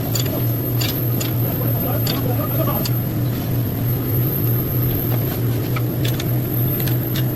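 Vehicle engine idling steadily, a low even hum with a few scattered light clicks over it.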